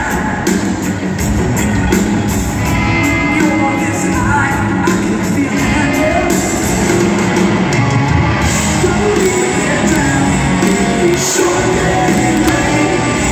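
Rock band playing loud and continuously, live in an arena: drums and electric guitars under a sung vocal, recorded from the audience seats.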